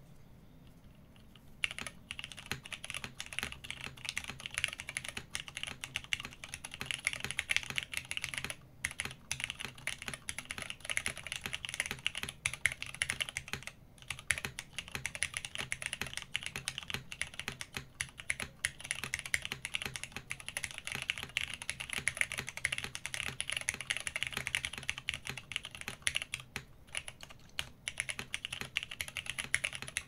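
Continuous typing on a Frog TKL mechanical keyboard with Cherry MX Black Hyperglide linear switches, 60 g long springs, a half FR4 plate and CRP Tulip keycaps: a dense run of keystrokes that starts about two seconds in, with a couple of brief pauses.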